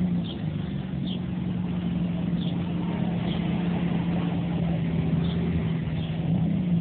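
A steady motor hum at a constant pitch under a noisy rush, with short high chirps every second or so.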